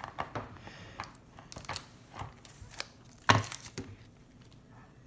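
Small toy pieces and plastic packaging being handled: scattered light clicks and taps with some crinkling, and one louder knock about three seconds in.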